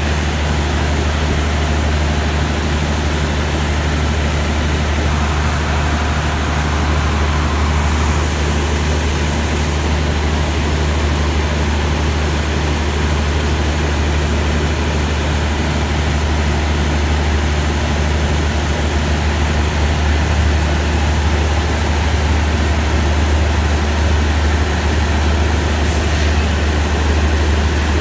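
Steady low diesel engine hum from a passenger train standing at the platform, running without change in pitch or level.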